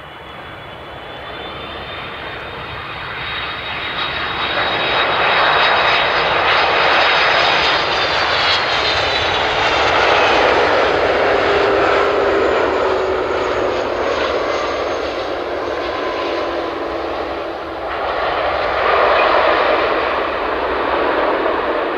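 Airbus A330-200 jet airliner landing close by. Engine noise builds as it approaches and peaks as it passes, with a high fan whine that drops in pitch. After touchdown the engines swell again near the end for reverse thrust on the rollout.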